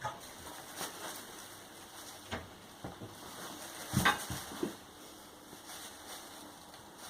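A cat scrabbling about in a bag: scattered soft knocks and rustles, the loudest cluster about four seconds in.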